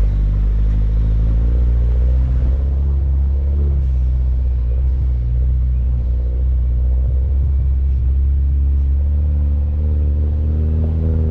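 Mini Cooper Countryman All4's engine running as the car drives along a trail, a steady low drone whose pitch drifts slightly up and down, with a rumble.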